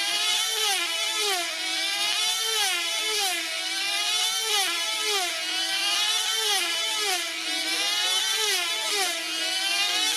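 Small 2.5 cc diesel engines of F2C team-race control-line model aircraft running flat out as the planes circle. Each pass brings a falling swoop in pitch, about one every two-thirds of a second, over a steady engine note.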